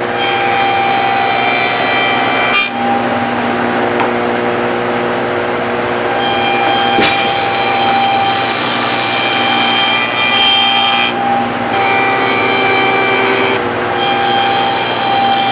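Table saw with a stacked dado blade running and cutting a rabbet along the edges of a wooden box bottom. Steady motor and blade tone, with the cutting noise dropping and returning several times as passes end and start.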